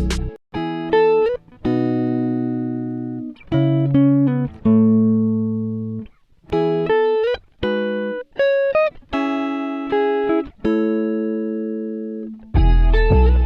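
Background music: a plucked guitar melody, each note ringing on and fading.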